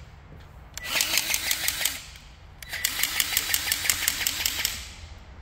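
Powered grease gun pumping grease into the H-link bushing grease fittings of a John Deere mini excavator, in two runs of fast, evenly spaced clicking pump strokes: one about a second in, and a longer one from about three seconds in to near the end.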